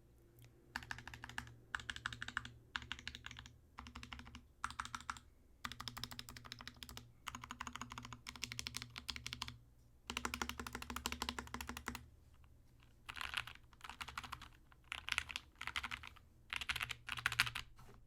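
Typing on an SK61 mechanical keyboard with lubed and filmed Gateron Brown tactile switches: runs of rapid keystrokes broken by short pauses, with the longest run about ten seconds in.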